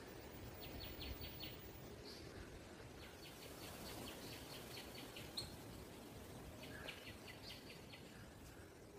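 Faint bird chirping in three quick runs of several high notes each, over quiet outdoor background noise.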